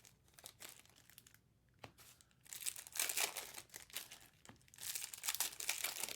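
Foil trading-card pack wrappers crinkling and tearing as packs are ripped open and handled, in two spells of crackling with a quieter gap and a single click about two seconds in.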